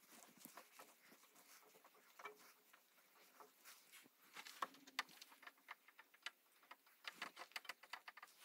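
Near silence broken by faint, irregular small clicks and taps, a few at first and more frequent in the second half.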